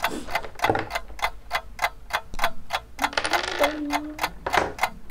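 Clock ticking at an even fast pace, about four ticks a second, marking a running countdown timer.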